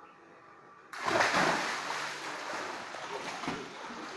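A boy jumping into a swimming pool: a sudden loud splash about a second in, then the water keeps splashing and churning as he swims.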